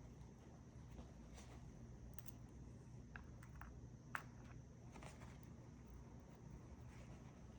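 Faint, scattered small clicks and taps of tiny lock pins and tools being handled over quiet room tone, with the sharpest click about four seconds in.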